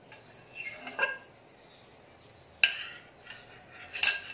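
Metal teaspoon clinking against a steel pan and bowl while hot ghee is spooned into flour: four sharp clinks, the loudest about two and a half seconds in, with a short ring after it.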